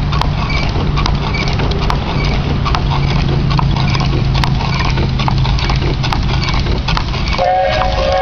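1908 Peerless Model S steam traction engine running, its crank and valve gear turning over with a steady low hum and a busy clatter of sharp clicks. Near the end, a chord-like whistle starts sounding over it.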